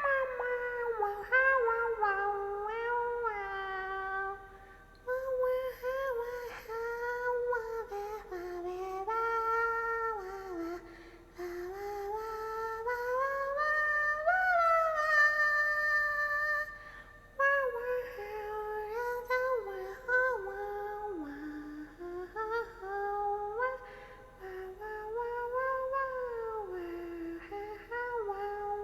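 A young woman's high voice humming and crooning without words, in short phrases that slide up and down in pitch, as she vocalizes while tipsy from drinking.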